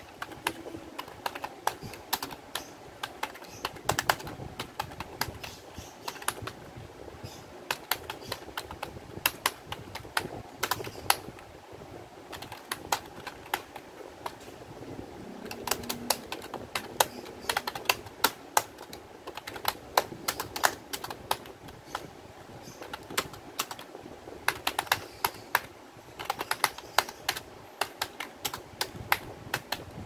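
Gigabyte computer keyboard typed on fast with both hands: a dense, irregular clatter of key clicks.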